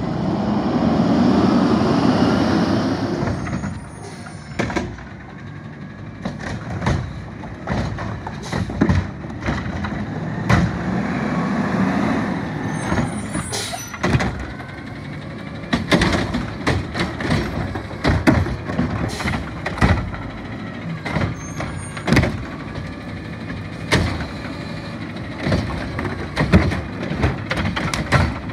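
Garbage truck with a Curotto-Can automated arm working the carts. The diesel engine and hydraulics rise to a loud surge with hiss in the first few seconds and swell again midway, while carts and debris bang against the can in many sharp knocks and clangs.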